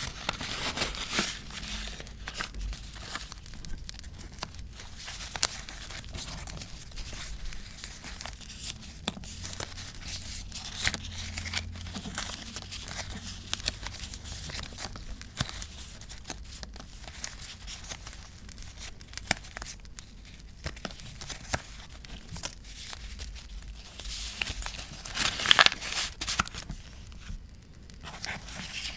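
Paper and stickers being handled: steady rustling and crinkling with short tearing sounds, and a louder burst of crinkling about 25 seconds in.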